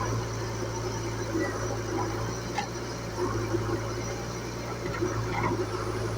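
Diesel engine running steadily with a constant low hum.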